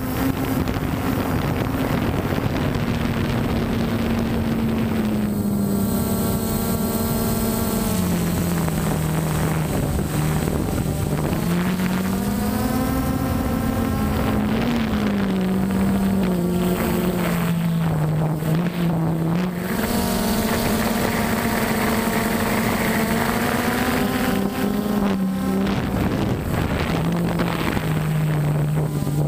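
DJI Phantom 1 quadcopter's motors and propellers humming, heard from the camera mounted on the drone. Several close hum tones drift up and down in pitch as the throttle changes while it flies.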